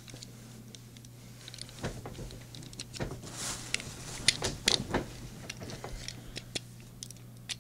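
Small clicks and scratches of fingers and fingernail prying at the tiny opening hood of a die-cast toy car, with a brief scraping hiss about three seconds in and a cluster of clicks near five seconds. A steady low hum runs underneath.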